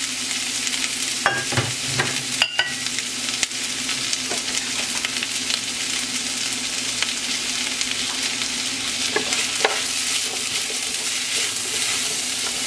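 Sliced bell peppers and onions sizzling in a hot oiled pot as they are sautéed and stirred: a steady frying hiss, with a few knocks in the first few seconds and again about nine seconds in.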